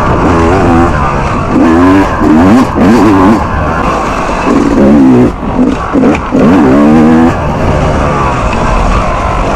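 Yamaha YZ250X dirt bike's single-cylinder two-stroke engine being ridden hard, revving up and dropping back in short bursts about once a second, its pitch climbing with each twist of the throttle. It runs steadier over the last couple of seconds.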